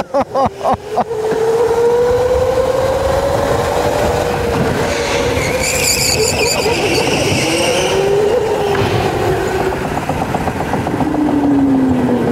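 Electric go-kart's motor whining, its pitch rising and falling with speed, over steady tyre and road noise. The tyres squeal through a corner about five to eight seconds in, and near the end the whine drops in pitch as the kart slows.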